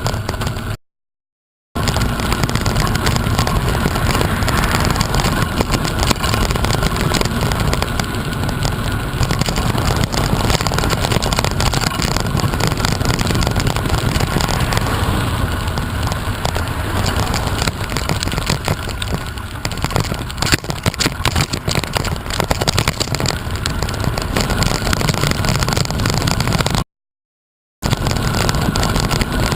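Loud, steady rumble of wind buffeting the microphone while moving, with a rushing noise underneath, cut by two brief dropouts to silence about a second in and near the end.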